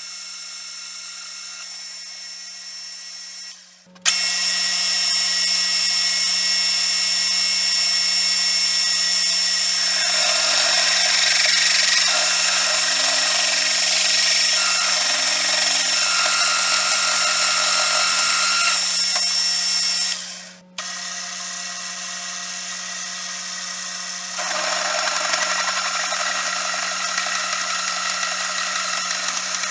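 Bench mill-drill running, its twist drill boring through a rusty steel flat bar, with a steady motor hum and high whine under the cutting noise. The sound breaks off abruptly twice and resumes, louder after the first break.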